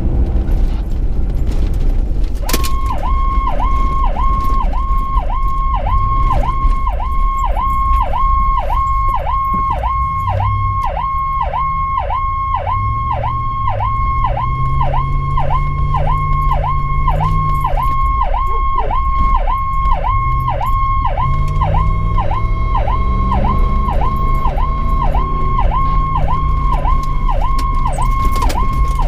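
Electronic emergency siren in a fast yelp, about two cycles a second, switching on about two and a half seconds in. It is heard from inside the responding vehicle's cab over the engine, whose pitch rises and falls as the vehicle speeds up and slows.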